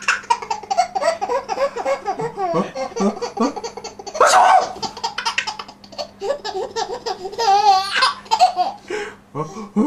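A baby laughing in repeated short bursts, with a high, wavering squeal-laugh about three-quarters of the way through. A loud sneeze from a man about four seconds in, which the laughter answers.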